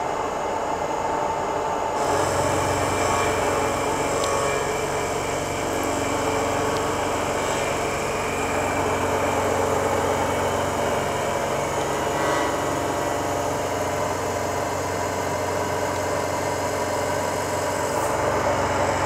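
CNC milling machine with a large milling cutter facing the top of a white plastic block flat, a steady cutting and spindle hum. The low hum steps up about two seconds in and changes slightly near the end.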